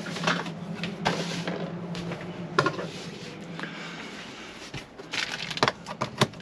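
Car keys being handled in a van cabin: scattered clicks and light rattles, coming thick and fast near the end. A low steady hum runs underneath and stops about two and a half seconds in.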